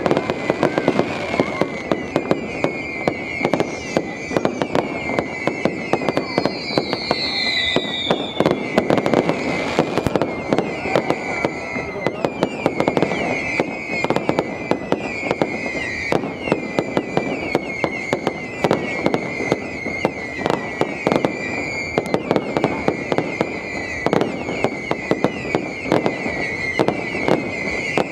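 Fireworks display going off continuously: a dense stream of rapid crackling bangs. A high wavering whistle runs through it, with a short falling whistle about seven seconds in.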